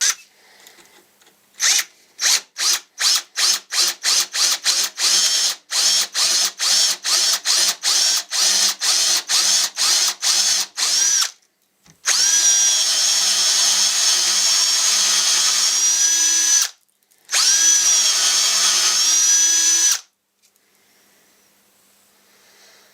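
Vonroc 20V cordless drill's motor blipped on the trigger in a quick series of short bursts, a couple a second, then run at steady speed twice, for about four seconds and then about three, with a steady whine.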